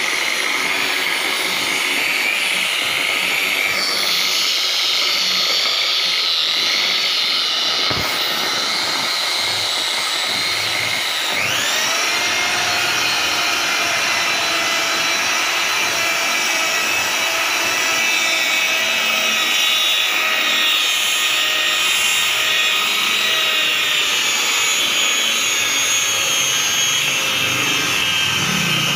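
Electric rotary car polisher with a foam buffing pad running steadily, its motor whining high, as it buffs wax coating onto the paint. A single click comes about a quarter of the way in, and shortly after the whine rises quickly and levels off.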